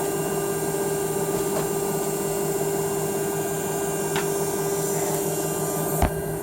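Shoe press's electric drive running with a steady hum, with a sharp click about six seconds in.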